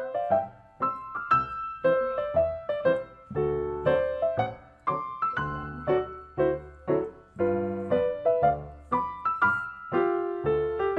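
Background piano music: a gentle melody of struck notes and chords, about two a second, each fading away.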